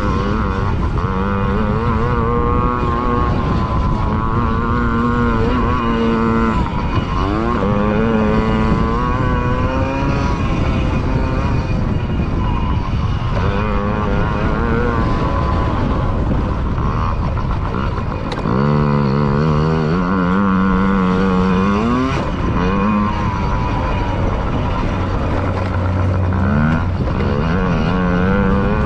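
Yamaha PW50's small 49 cc two-stroke engine revving up and down with the throttle as the bike races over a motocross track, its pitch climbing and falling again and again over a steady rushing noise.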